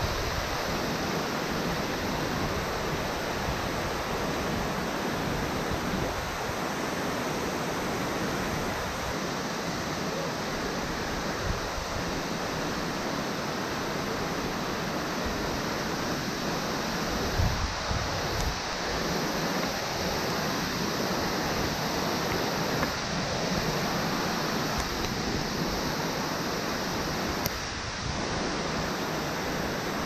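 Glacier-meltwater waterfall pouring down a rock face into a snow-and-ice gorge: a steady, even rush of falling water and spray.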